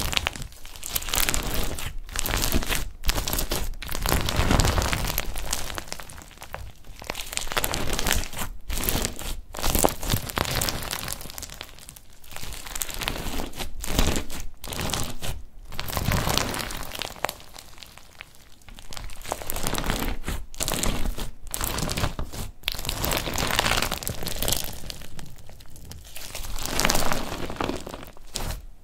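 Clear bead-filled crunchy slime being squeezed, pressed and stretched by hand, squishing and crunching in irregular waves broken by short pauses between presses.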